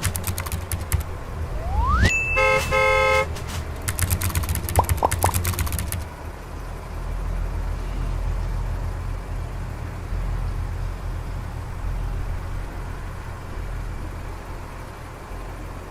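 A vehicle horn toots briefly about two seconds in, followed by a vehicle engine running with a steady low rumble that slowly fades.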